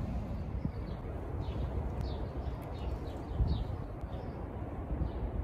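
Steady low rumble of outdoor ambience. Small birds chirp faintly through the first few seconds, in several short high calls.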